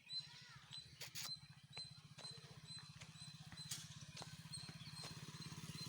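A faint engine running steadily with a rapid low pulse, getting louder toward the end. Over it, a short high chirp repeats about twice a second, with a few sharp clicks.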